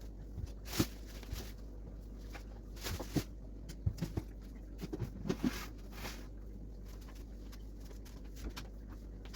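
Scattered light knocks and clicks of kitchen items being handled and set down during cleaning, with a few soft rubbing swishes. The knocks bunch up in the first six seconds and then die away.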